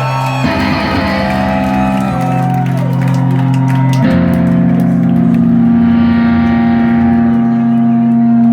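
Distorted electric guitar playing live, holding long sustained chords that change about every two seconds and swell slightly louder, with no drums yet.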